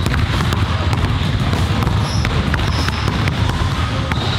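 Basketball dribbled repeatedly on a hardwood court, each bounce a sharp smack, with a few short high sneaker squeaks, over a steady low rumble.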